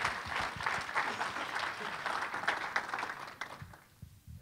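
Church congregation applauding, the clapping dying away near the end.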